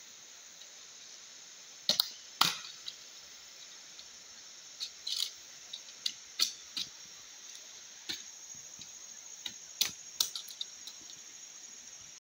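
Machete strokes on bamboo: about a dozen sharp, irregular knocks and cracks, the loudest two about two seconds in. A steady high drone of forest insects runs underneath.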